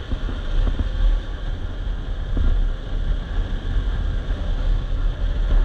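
Bajaj Pulsar RS200's single-cylinder engine running while the motorcycle is ridden along a road, heard as a steady low rumble, with wind buffeting the microphone.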